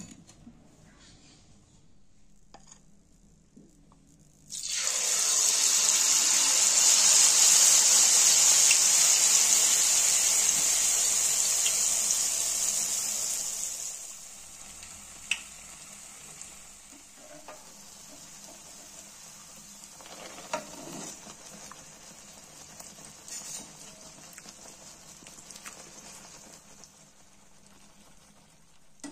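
Egg malpua batter hitting hot oil in a frying pan: a sudden loud sizzle that goes on for about ten seconds, then settles into a quieter steady sizzle with a few small pops as it fries.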